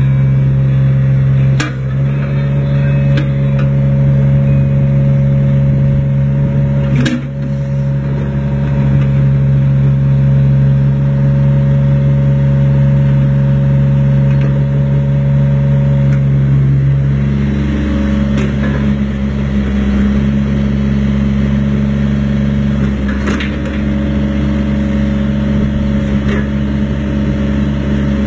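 Komatsu PC10-5 mini excavator's diesel engine running steadily. Its note shifts in pitch about two-thirds of the way through, and a few short knocks come from the machine.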